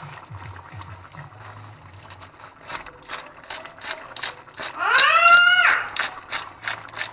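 Wooden pepper mill being twisted by hand, grinding with a fast ratcheting click at about four clicks a second. About five seconds in, a drawn-out high voice sounds over it; it is the loudest sound here.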